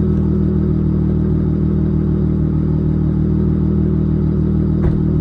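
Dodge Charger SXT's V6 idling steadily through a Flowmaster Outlaw exhaust, with one short sharp pop near the end.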